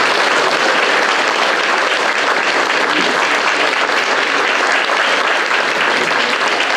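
Audience and panel applauding steadily, closing a lecture.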